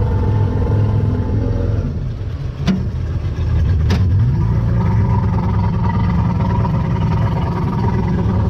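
Fast boat's engine running, its level dipping about two seconds in, with two sharp clicks about a second apart; then the engine note climbs and holds steady at a higher pitch as it revs up.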